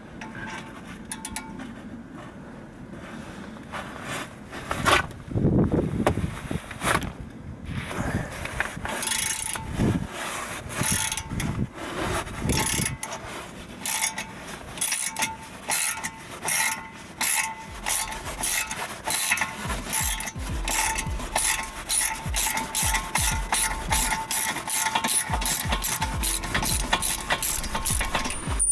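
Socket ratchet clicking in a fast, even run of strokes as it unscrews a brake caliper guide pin bolt, after a few irregular knocks at the start.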